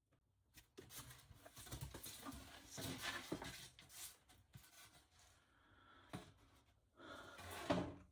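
Rustling with scattered light knocks and clicks as things are handled, in two spells, the second ending in the loudest knock near the end. This is most likely camper wiring and cables being pulled and moved behind a panel.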